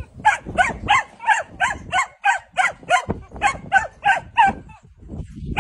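Belgian Malinois puppy barking in a rapid run of about fifteen high, yappy barks, about three a second, that stop about four and a half seconds in.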